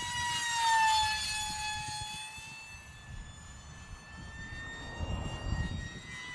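E-flite UMX A-10 RC jet's 30 mm electric ducted fan whining in a fly-by. It is loudest about a second in, with a rush of air, and its pitch drops as it passes, then it whines on steadily as it moves away. Low wind rumble on the microphone comes in near the end.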